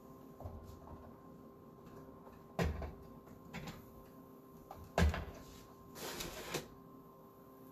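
Two sharp knocks about two and a half seconds apart, then a short rustling scrape, from things being handled and set down, over a faint steady electrical hum.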